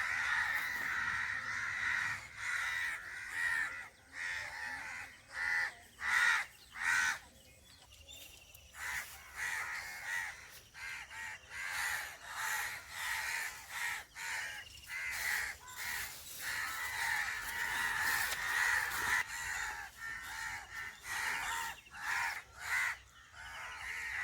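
Crows cawing over and over, call after call with short gaps, easing into a brief lull about eight seconds in before picking up again.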